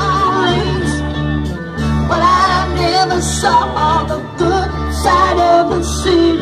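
Loud music with a singer over a steady bass line.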